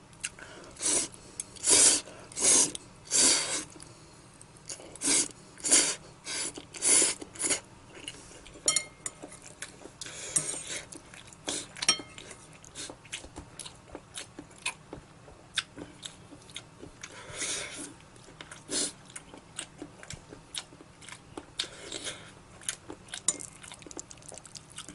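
A person eating noodles up close: repeated bursts of loud chewing and mouth sounds, most closely packed in the first few seconds, with small clicks of utensils against a dish in between.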